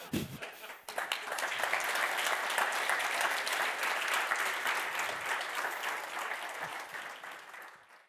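Audience applauding, starting about a second in and fading away near the end.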